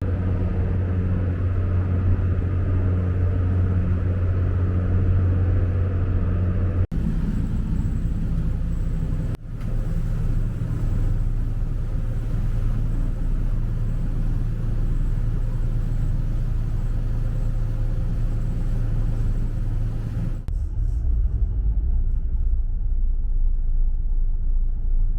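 Engine running with a steady low drone, broken by a few abrupt cuts between clips.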